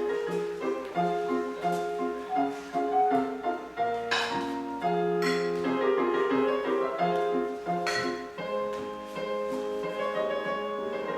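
Piano music: a run of sustained notes, the melody moving step by step, with a couple of short clicks about four and eight seconds in.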